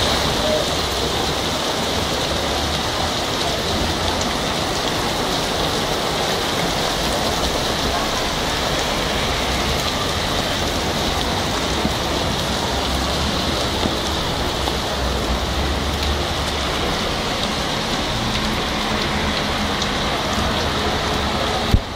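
Heavy rain pouring onto a waterlogged road and pavement, a steady dense hiss of drops splashing into standing water.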